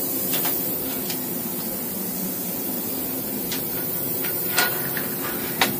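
Steady machine-shop hum and hiss, with a few light clicks and clinks of small metal parts being handled at a milling machine's table; the two sharpest clicks come near the end.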